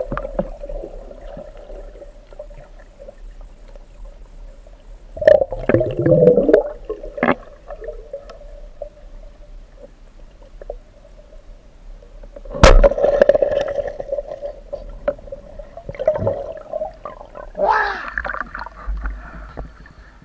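Underwater gurgling and bubbling heard through a submerged camera in a river, over a steady faint hum, with several louder bubbling bursts and one sharp knock about two-thirds of the way through.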